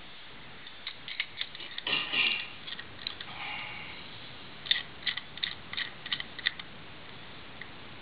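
Master combination padlock worked by hand: a few small clicks, a short scraping rattle about two seconds in, then a quick run of about ten clicks from the dial and shackle as the lock is manipulated.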